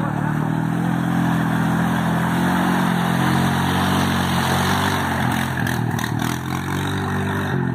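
ATV engine running under load as the quad pushes through a deep mud hole. The pitch rises and dips slightly with the throttle.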